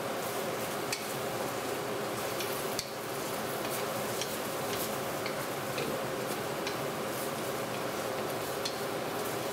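Eggplant and shredded pork sizzling in a hot wok while a wooden spatula stirs and tosses them, a steady frying hiss with scattered light taps and scrapes of the spatula against the wok.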